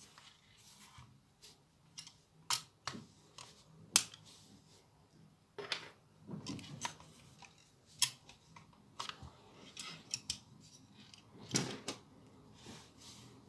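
Plastic LEGO bricks and parts being handled and knocked against each other and the desk: irregular sharp clicks and clacks.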